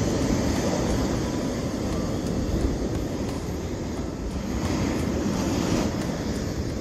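Wind buffeting the microphone over the steady rush of ocean surf, a low rumbling noise with no pauses.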